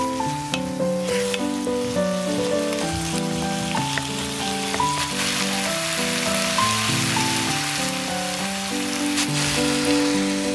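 Food sizzling in oil in a frying pan, a steady hiss that grows fuller partway through, under background music of gently stepping held notes.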